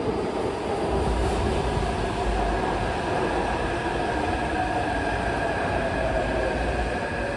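Taipei Metro C371-series train pulling into an underground station: a steady rumble of the cars running along the platform, with a faint high whine over it as the train slows.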